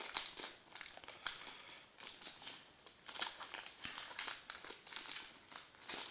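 Foil trading-card pack being torn and crinkled open by hand: irregular crackling rustles.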